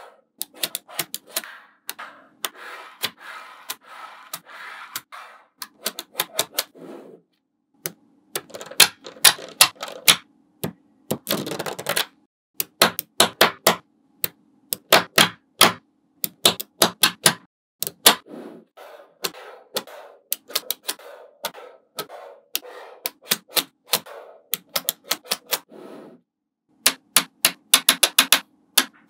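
Small magnetic balls clicking and snapping together as they are pressed by hand onto a magnet-ball structure, in quick irregular runs of sharp clicks. Between the runs come stretches of softer rattling as loose balls roll against each other, and the sound breaks off into silence a few times.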